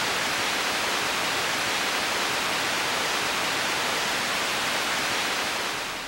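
Steady static hiss, like an untuned TV, that fades out near the end.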